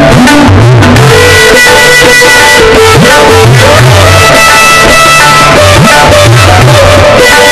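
Instrumental music: sustained melody notes over a low bass figure that repeats about every two and a half seconds.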